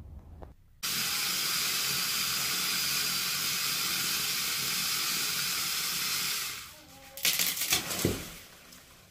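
Cordless electric chainsaw (Edon 10-inch) cutting through a small tree trunk: it starts suddenly about a second in and runs steadily for about six seconds. Then the tree falls, its branches crashing and cracking, and the trunk lands with a heavy thud near the end.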